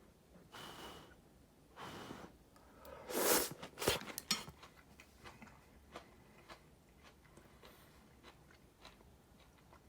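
Close chewing and biting sounds of food being eaten: a few louder wet, crunchy bites in the first four seconds or so, then faint small clicks.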